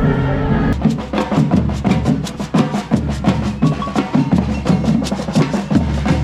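Music with fast percussion: a quick run of sharp drum and wood-block-like strikes that comes in under a second in, over a pitched backing.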